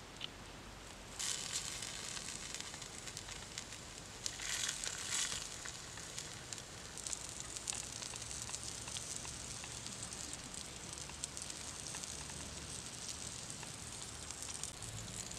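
Whole frogs sizzling as they are laid on a hot, wet stone slab over a wood fire, with the fire crackling. The sizzle starts suddenly about a second in and is loudest for a moment around four to five seconds in.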